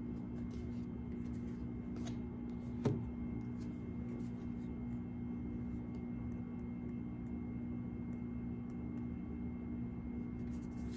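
Tarot cards being handled: light sliding and rubbing of the cards with a few faint ticks, and one sharp card tap about three seconds in, over a steady low hum.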